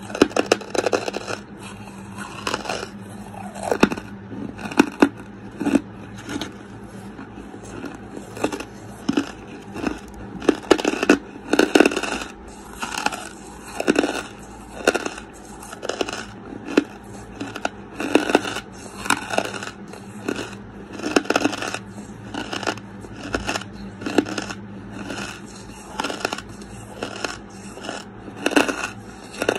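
Close-miked chewing of charcoal: crisp, irregular crunches, about one or two a second, as the pieces are ground between the teeth, over a faint steady hum.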